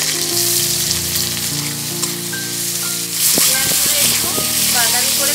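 Sliced onions sizzling loudly in hot oil in a karahi. They are stirred with a spatula, and the frying swells, with some scraping against the pan, about three seconds in.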